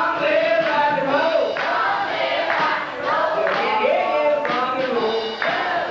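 Live rock music from a school band, with several voices singing together over a beat that strikes about once a second.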